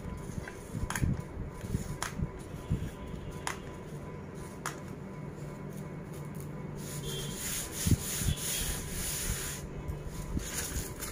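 Bouquet wrapping paper rustling and rubbing under hands as the sheet is spread and smoothed flat, loudest from about seven seconds in. A few sharp clicks come in the first half.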